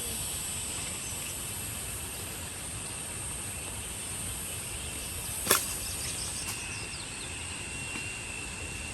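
Steady, high-pitched insect chirring in a rural outdoor background, with one sharp click a little past the middle and a thin, steady high tone joining soon after.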